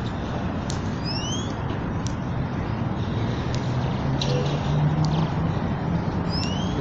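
Steady rumble of road traffic and wind. A low engine drone swells about halfway through, and a few short rising chirps sound about a second in and again near the end.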